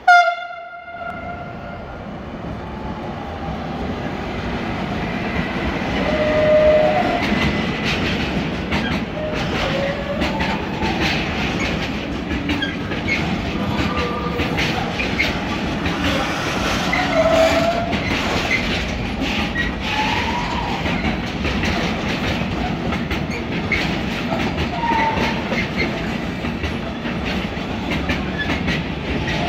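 Class 192 (Siemens Smartron) electric locomotive gives one short horn blast right at the start. Then a long intermodal train of pocket wagons carrying lorry trailers rolls past: a steady rumble growing louder over the first few seconds, with clickety-clack of the wheels and scattered brief wheel squeals.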